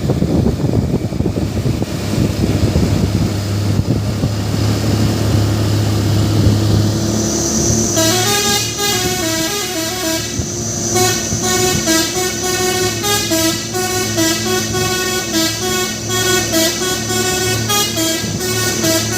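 Truck running with engine and road noise; about eight seconds in, a telolet horn starts playing a tune of quick, stepping notes that goes on to the end.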